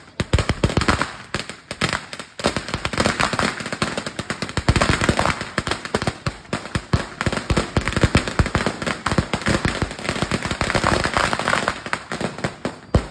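A long firecracker belt of 5,000 rounds going off in rapid, unbroken crackling, a dense stream of sharp bangs that thins out right at the end as the string burns out.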